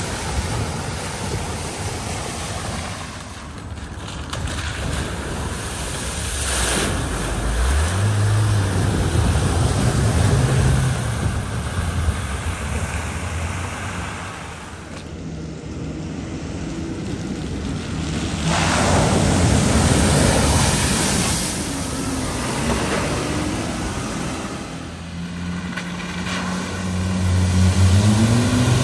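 Vehicles driving one after another through a deep flooded ford, water splashing and surging off their wheels and bodywork. Engines rise in pitch as they pull through, about a quarter of the way in and again near the end, and the spray is loudest a little past the middle.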